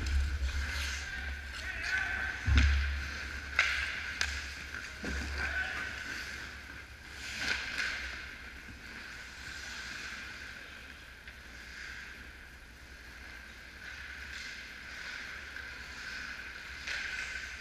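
Ice hockey play on an indoor rink: skates scraping the ice, with several sharp knocks of sticks and puck in the first eight seconds, the loudest a thump about two and a half seconds in. It is quieter later as play moves away, over a steady hum.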